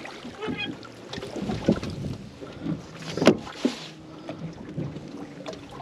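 Deck noise aboard a fishing boat: wind on the microphone with a few sharp knocks, the loudest about three seconds in.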